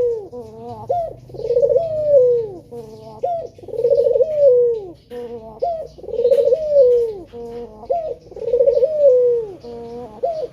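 Male Barbary dove (puter) cooing over and over, a rolling coo that rises and then falls, about five times, each followed by a short falling note. Faint chirps of small birds come in between.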